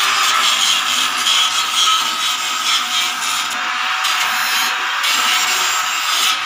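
Arc welding on a steel tube frame: a steady crackling sizzle of the arc that starts and cuts off abruptly, with two brief dips partway through.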